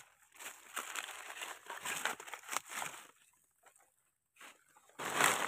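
Dry fallen leaves rustling and crunching in irregular bursts as they are handled and stepped in, with a quiet gap about three seconds in and louder crunching near the end.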